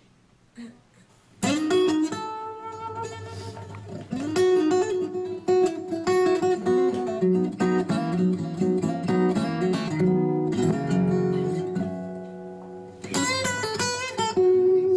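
Recorded guitar music played back through the ASUS Cine5 soundbar. It starts about one and a half seconds in as a run of plucked and strummed notes.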